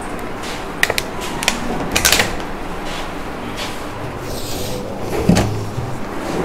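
Several sharp clicks and knocks of objects being handled, a cluster about two seconds in and another knock about five seconds in, over steady background noise.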